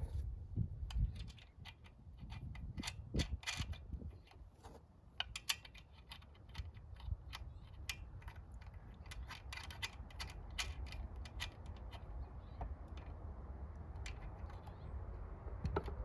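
Scattered clicks, taps and light rattles as hands work on a new chainsaw's parts, fitting covers and fastenings. The chainsaw is not running.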